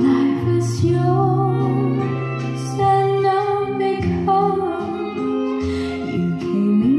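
A song with a woman singing held notes over guitar accompaniment, played back through hi-fi speakers driven by a V1 Bluetooth hybrid tube amplifier.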